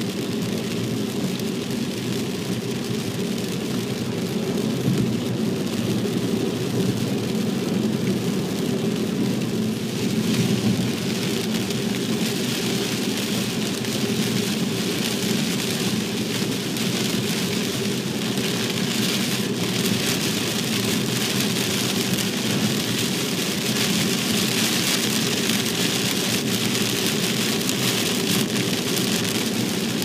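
Steady road noise of a car driving on a rain-soaked expressway in typhoon rain, heard through the dashcam: a low hum of tyres and engine under a hiss of rain and spray on the car, with the hiss growing stronger about halfway through.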